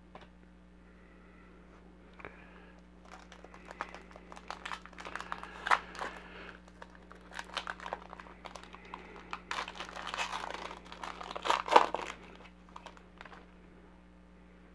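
Wrapper of a 2019 Panini Contenders football card pack being torn open and crumpled by hand: irregular crackles starting about two seconds in, loudest about halfway through and again near the end.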